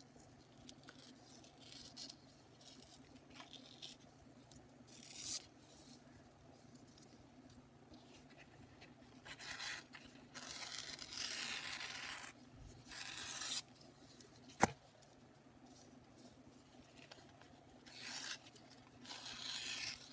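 Painted watercolor paper being torn by hand in slow, short rips with pauses between them, the longest tear lasting about two seconds. There is a single sharp tap a little past the middle.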